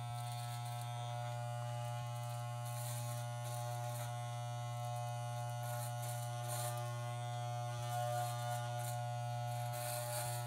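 Corded electric hair clippers running with a steady low buzz while shaving short hair down to the scalp, with a brief scratchy rasp a few times as the blade bites into hair.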